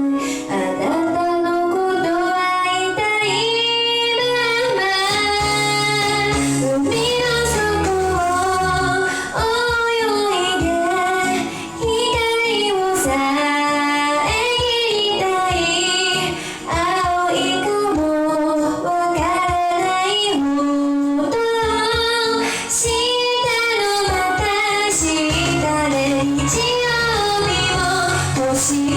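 A high female voice singing a song over an instrumental backing track.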